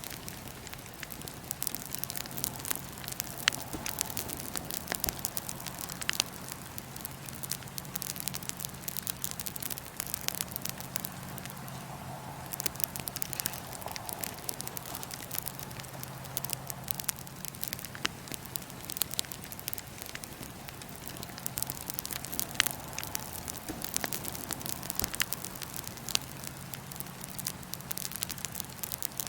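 Wood fire in a fire pit crackling, with frequent sharp, irregular pops and snaps over a steady rushing of the flames.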